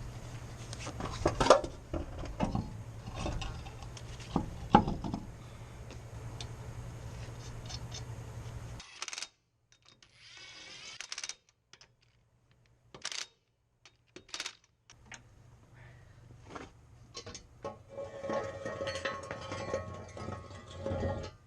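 Metal tools and parts clanking and clicking during reassembly of a truck's front brake and hub, with several sharp clanks in the first few seconds. The sound cuts away suddenly to near silence, broken by a few isolated clicks, then scattered clicks return.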